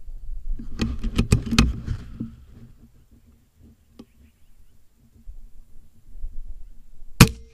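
A quick run of sharp clicks and knocks about a second in. Near the end, an FX Impact M3 .25 calibre PCP air rifle fires once with a single sharp crack, followed by a brief ring.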